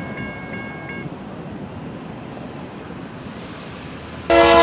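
Grade-crossing warning bell ringing about three times a second, stopping about a second in, over wind noise on the microphone. Near the end a freight locomotive horn starts suddenly and loudly.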